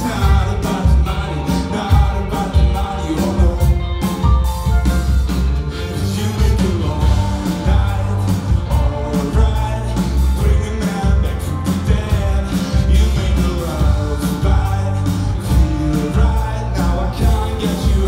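Live band music: a male singer's vocals over electric guitar, bass and drums, with a strong bass and a steady drum beat.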